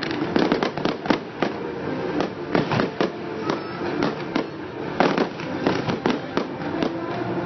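Fireworks going off in rapid succession: a dense run of pops and crackles with louder bangs every second or two.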